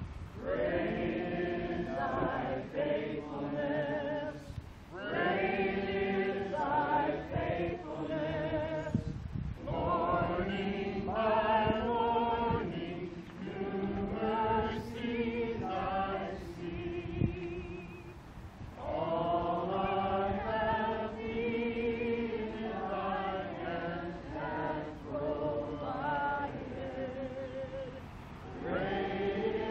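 A group of people singing a song together, in long phrases with brief pauses between them.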